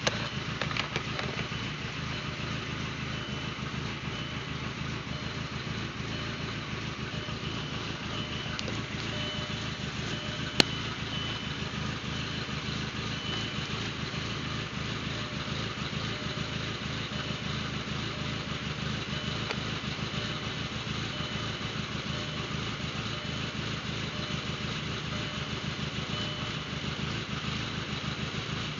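VW GTI 1.8T 20-valve turbocharged four-cylinder engine running steadily at idle while misfiring. The owner's fault codes point to a cylinder 4 misfire and a bad knock sensor #1. A single sharp click comes about ten seconds in.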